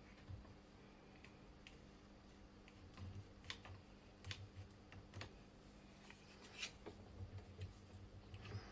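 Faint, scattered clicks and taps from Irwin one-handed bar clamps being handled and tightened onto a small workpiece.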